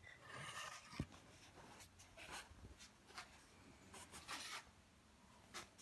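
Faint, irregular rubbing and scratching sounds, with one soft knock about a second in.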